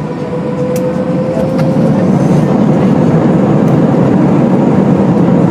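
Airliner jet engines spooling up for the takeoff roll, heard inside the cabin: a faint rising whine under a broad rush of noise that grows louder over the first two or three seconds and then holds steady at full power.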